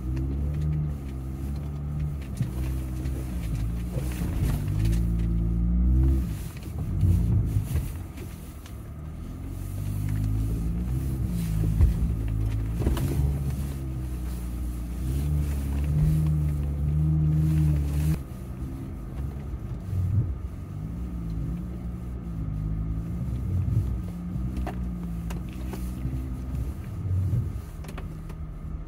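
Jeep Gladiator engine heard from inside the cab, working slowly over a rocky trail in low gear, its pitch rising and falling with the throttle. There are a few sharp knocks about midway.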